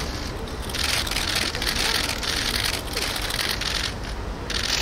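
Press cameras' shutters firing in rapid bursts from many cameras at once, a dense rain-like clatter that drops out briefly near the start and again near the end.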